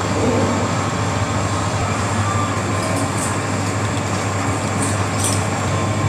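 Steady room hum with a constant low drone underneath; no distinct event stands out.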